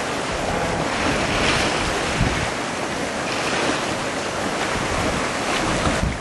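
Strong wind blowing steadily across the microphone, with choppy, wind-driven water splashing.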